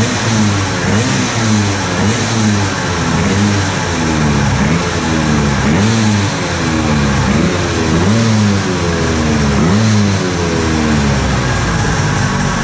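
BFA 306 cc two-stroke Vespa PX 200 engine with a DSE racing exhaust running on a rear-wheel dyno, its revs rising and falling over and over, about once a second.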